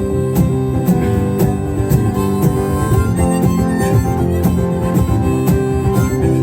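Acoustic guitar strumming a steady beat with a harmonica playing over it, an instrumental break in a live blues-folk song.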